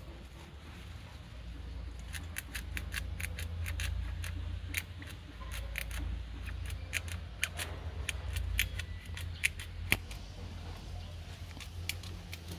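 A blade cutting and scraping into a young papaya trunk to open it for a graft. It makes a run of irregular sharp clicks and snips, starting about two seconds in, over a steady low rumble.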